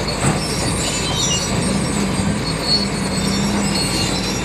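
Tractor engine running steadily, with thin high squeals over its noise.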